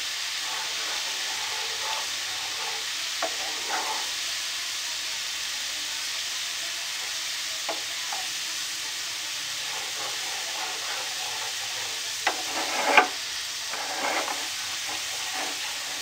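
Garlic sizzling as it fries in hot oil in a pan, with a spatula scraping and stirring now and then, most strongly about thirteen seconds in.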